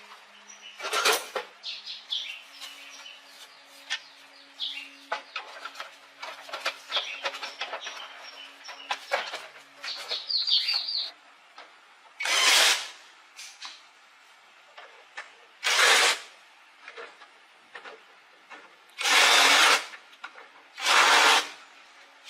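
Hand-tool work: irregular clicks and metal knocks, with four short loud hissing bursts in the second half.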